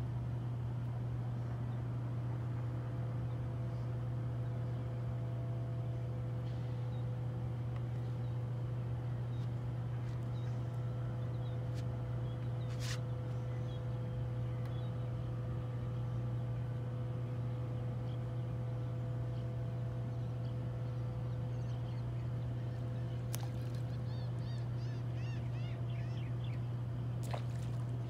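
A steady low hum runs throughout. Over it come a few short sharp splashes of fish jumping in calm water, about a third of the way in and twice near the end, with brief high chirps just before the last splash.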